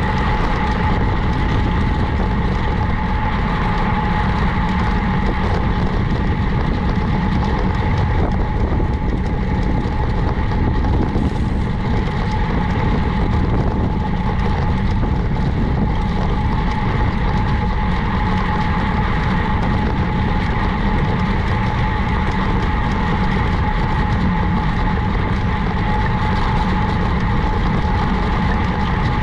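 Steady riding noise of a road bicycle in motion: a continuous low rumble and rushing noise, with a constant thin whine running through it.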